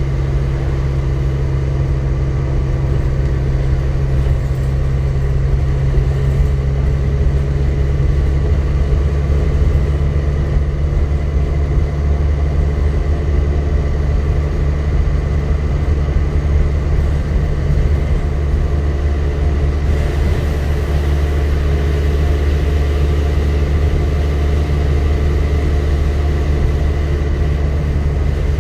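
Dennis Trident double-decker bus heard from inside the passenger saloon on the move: a steady, deep engine drone with road and body noise, unchanging throughout.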